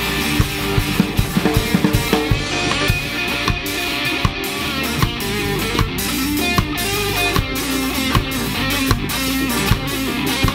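Live ska band playing: drum kit with a steady beat, electric guitar, bass and organ, with the trumpet playing over them.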